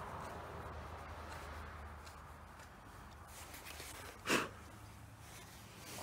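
Faint handling of a Chassepot rifle, with one short puff of breath about four seconds in, blown through the bore to clear black-powder fouling left by the last shot.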